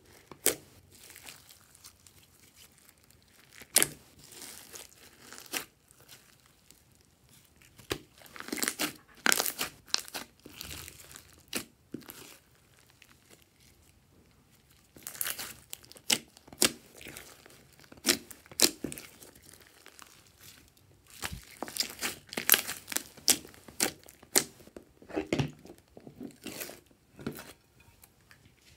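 Hands kneading, stretching and pressing thick slime mixed with foam beads, making irregular wet crackles, pops and squelches as air pockets in the slime burst. The crackles come in clusters separated by quieter spells.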